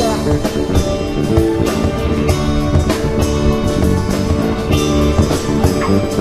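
Live rock band playing: drum kit keeping a steady beat under electric guitars, bass guitar and keytar.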